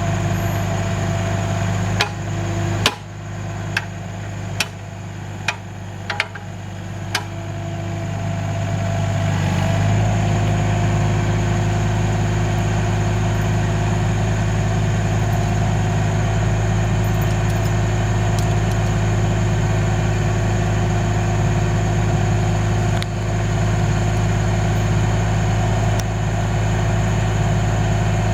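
An engine running steadily with a low hum, with about seven sharp knocks in the first several seconds. About ten seconds in it picks up and runs louder and steadier.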